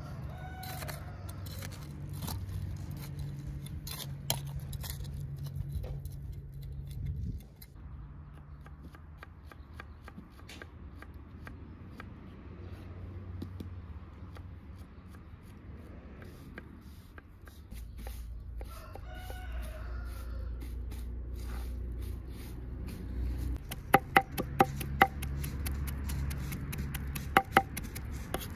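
Chickens clucking now and then over a low steady background, with several sharp clicks near the end.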